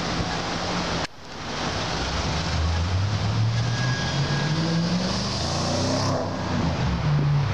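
Car engines in street traffic, one climbing steadily in pitch as it accelerates past, over a steady rush of traffic noise. A brief drop-out about a second in.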